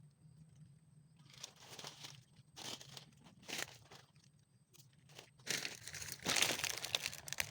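Rustling and crinkling of material being handled: a few short bursts, then a longer, louder stretch of rustling in the last couple of seconds.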